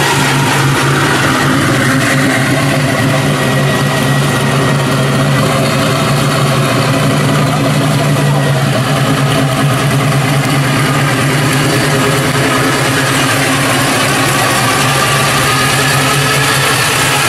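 Engine of a lowered 1960s Chevrolet C10 pickup running at a steady low idle as the truck creeps along at walking pace, with no revving.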